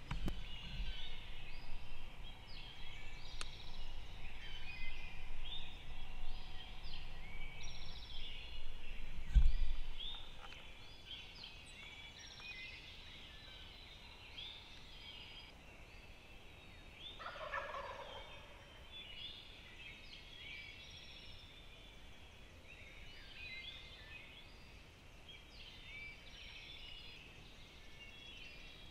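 Wild turkey gobblers gobbling from their roost at first light, with one clear, strong gobble about two-thirds of the way in, over many short songbird chirps. In the first third there is a low rumble that ends in a loud thump.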